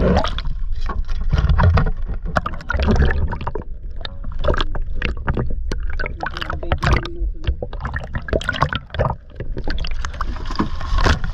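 Water sloshing and gurgling around a camera held underwater, with a low rumble and many short knocks and bumps.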